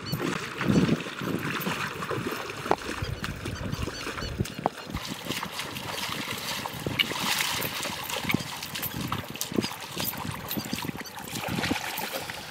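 Legs wading through shallow river water: irregular sloshing and splashing with each stride.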